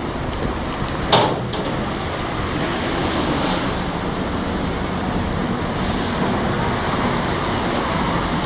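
Steady street traffic noise, with one brief sharp noise about a second in.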